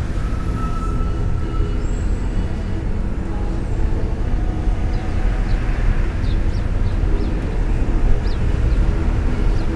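A Toyota car being driven, heard from inside the cabin: a steady low engine-and-road rumble. A few faint, short high chirps come through in the second half.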